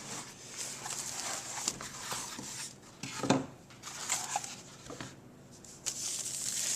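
Cardboard and plastic packing rustling and scraping as a boxed alarm clock is worked out of its packaging, with a few light knocks.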